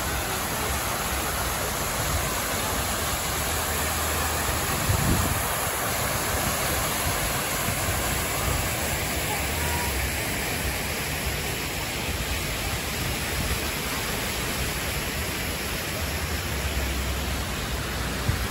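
Steady rushing hiss of fountain jets spraying and splashing into a pool. A single low thump about five seconds in.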